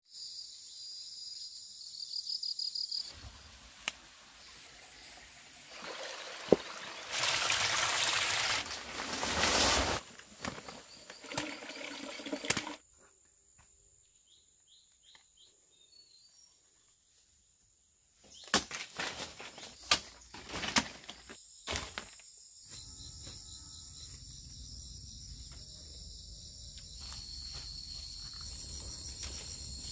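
Countryside ambience: insects chirring in steady high tones, broken by bursts of rustling from plants being handled and a few sharp clicks. There is a quiet stretch midway with a few faint high chirps.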